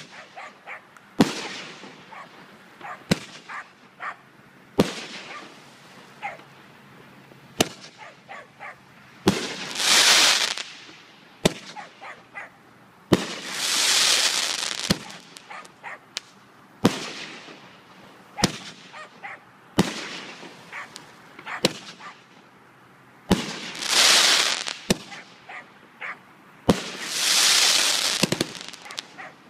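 Big Honkin' Star 15-shot consumer fireworks cake firing: sharp shots at irregular gaps of one to three seconds. Several are followed by a rush of hiss lasting about a second as the stars break.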